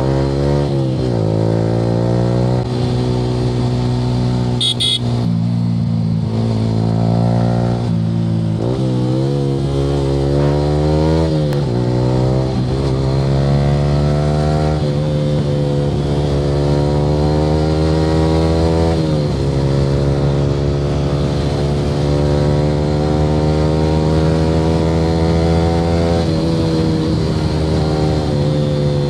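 Yamaha R15 V3's single-cylinder engine breathing through an aftermarket Akrapovic R9 exhaust while riding. The engine pitch climbs repeatedly and drops at each gear change, then holds a fairly steady cruise for several seconds before more throttle changes. A short high-pitched beep sounds about five seconds in.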